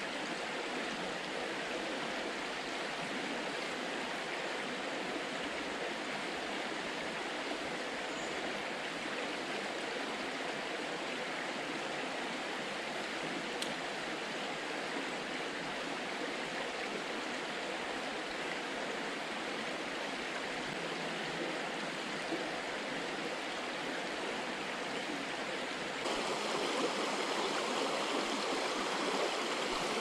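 Shallow, fast-flowing river running over stones: a steady rush of water that grows a little louder near the end.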